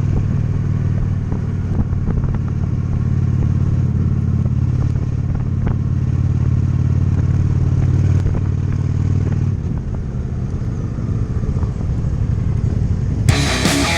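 Honda Shadow 750's V-twin engine running steadily at cruise, then easing off about ten seconds in as its steady note drops away. Rock music with electric guitar cuts in near the end.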